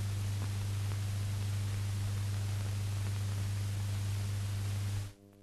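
Steady hiss and low hum of an old newsreel sound-on-film soundtrack with no one speaking. Near the end the noise cuts out suddenly to near silence.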